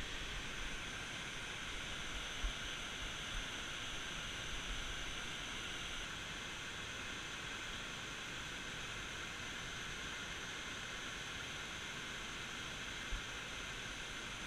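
Steady rushing of the Cuyahoga River's Big Falls, a low-water waterfall spilling over a rock ledge. A few brief low thumps come in the first few seconds and one more near the end.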